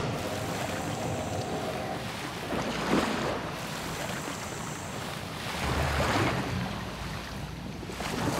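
Wind buffeting the microphone over the wash of the sea around a small boat, with a louder rush of water and wind about six seconds in.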